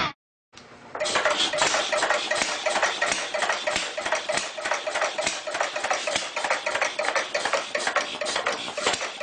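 5.9 Cummins diesel engine of a 2005 Dodge Ram 2500 idling with a steady, rhythmic clatter, starting about a second in after a short silence.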